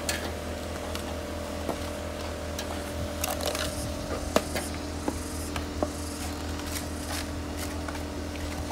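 Excavator's diesel engine running steadily, with scattered scrapes and knocks of hoes and shovels working in mud.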